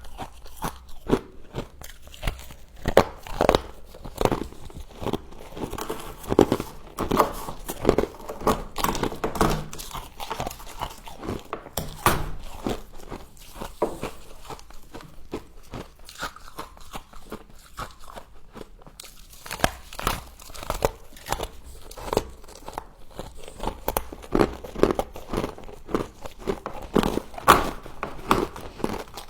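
Close-up crunching and chewing of a mouthful of frost: sharp crisp crunches one after another, thinning out for a few seconds about halfway through before picking up again.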